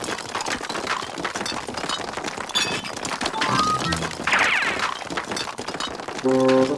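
Cartoon background music over a quick, continuous clatter of ice cubes spurting from a hose and landing on an ice dome.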